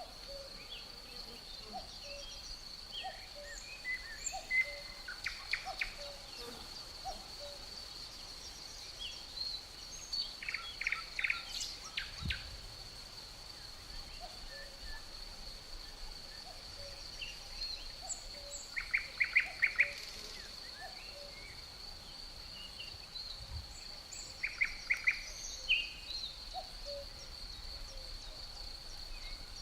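Outdoor nature ambience: birds calling and chirping over a steady high-pitched insect drone. Four times a bird gives a short burst of rapid repeated notes, the loudest sounds here.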